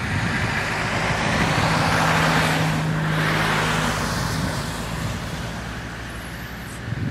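A car passing by, its engine hum and tyre noise swelling to a peak about three seconds in and then fading away.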